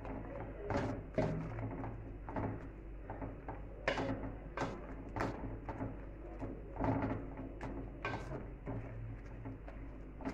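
Silicone spatula scraping and knocking against an aluminium pan as a thick, wet besan mixture is stirred, in irregular strokes about once or twice a second.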